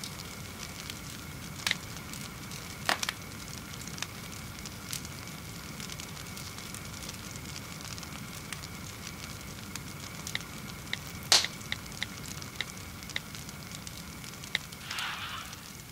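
Paper pages of a book burning down in a small metal box: a steady low hiss of fire with sharp, irregular crackles and pops, the loudest about eleven seconds in. A short hiss comes near the end.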